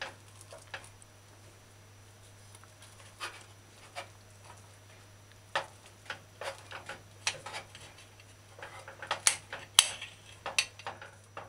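Kitchen knife cutting through a toasted grilled ham and cheese sandwich, the blade clicking and scraping against the plate in scattered short strokes that come more often near the end.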